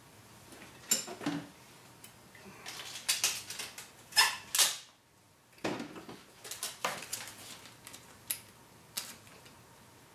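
Irregular clinks, knocks and scrapes as a run-flat tire is worked by hand on a tire changer, with tools and wooden wedges against the alloy rim; a busier run of clatter in the middle, a short pause, then scattered clicks.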